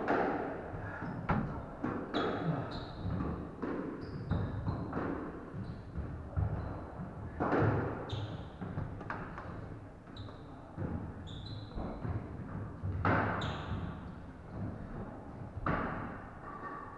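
Squash rally: the ball being struck by rackets and smacking off the court walls in a run of sharp, echoing knocks, with short high squeaks of shoes on the wooden floor between shots.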